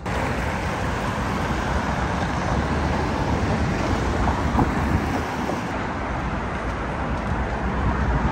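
Road traffic on a city street: a steady, dense rumble and hiss of passing vehicles that begins abruptly.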